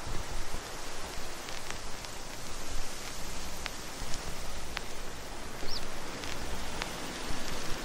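Steady hiss with an uneven low rumble and a few scattered sharp clicks; no speech or music.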